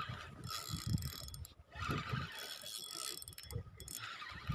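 Spinning fishing reel cranked in quick, uneven turns, its gears whirring and clicking as a hooked fish is reeled in after a strike.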